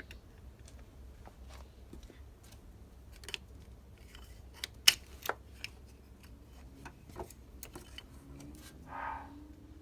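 Scattered light metallic clicks and clinks of small battery-terminal hardware and tools being handled, the sharpest click about five seconds in.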